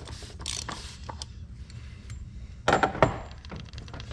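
A ratchet with a 36 mm socket clicking in short strokes as it turns the plastic oil filter housing cap loose on a 6.0 Powerstroke diesel, then two loud knocks about three seconds in.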